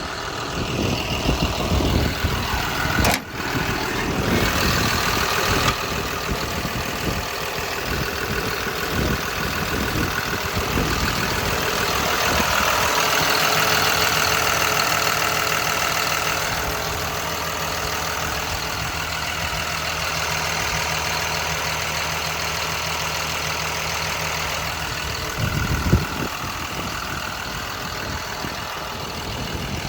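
John Deere 210G LC excavator's diesel engine idling steadily, with a single sharp knock near the end.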